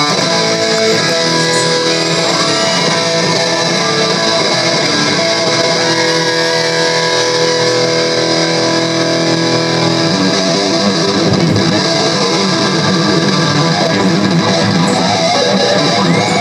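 Live rock band with an amplified electric guitar: held chords ring for about ten seconds, then the playing turns into a busier passage.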